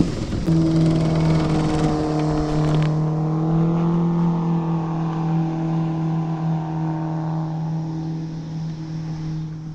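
Boat motor running at a steady speed, starting about half a second in, its pitch rising slightly and then holding steady.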